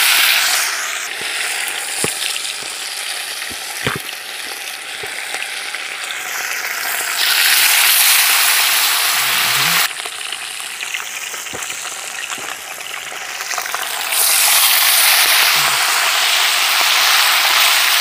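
Fish frying in hot oil in a pot over an open fire, with a loud, steady sizzle. The sizzle swells louder about seven seconds in, drops back near ten seconds, and swells again from about fourteen seconds, with a few sharp clicks along the way.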